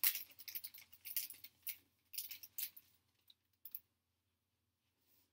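Foil baseball card pack wrapper crinkling and rustling as it is pulled open and the stack of cards slid out, with a couple of light ticks of card handling. The sound stops a little over halfway through.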